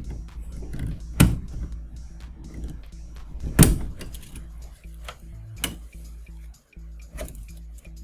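Plastic wire-harness connectors being unplugged inside a DLP TV: a few sharp clicks and knocks of handling, the loudest about three and a half seconds in, over quiet background music.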